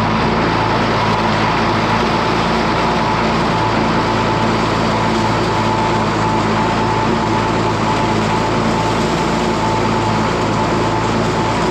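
Tractor engine running steadily at constant speed while raking hay into windrows, with a steady whine over the engine note.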